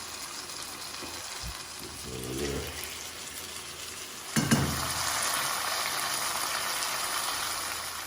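Okra and tomatoes sizzling in a frying pan. A little over four seconds in there is a knock, and the sizzle gets louder and stays up.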